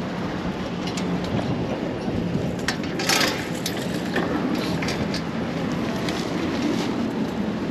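Busy city street: a steady rumble of traffic and an engine hum, with a few sharp clicks and knocks about three seconds in.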